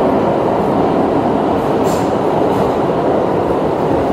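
A New York City Subway 3 train running through a tunnel, heard from inside the car: a steady, loud rumble of wheels on rails, with a brief high squeak about two seconds in.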